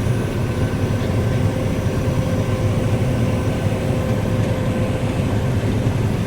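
Combine harvester running steadily at work, an even, loud low rumble of engine and threshing machinery with a faint steady whine, heard from inside the cab.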